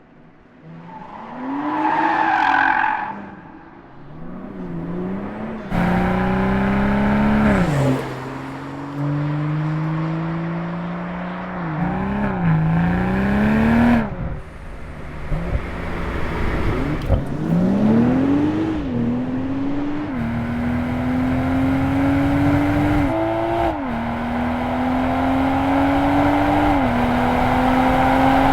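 BMW 2 Series Coupé engine and exhaust under hard acceleration, the note rising steadily and dropping back at each upshift, several times over, with abrupt changes between shots. A short squeal about two seconds in.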